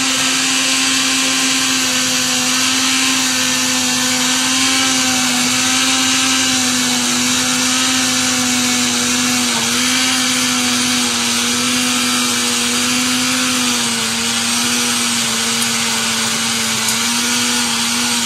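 Countertop electric blender running steadily, whipping eggs with sugar into a cake batter: a steady motor hum whose pitch dips slightly a couple of times.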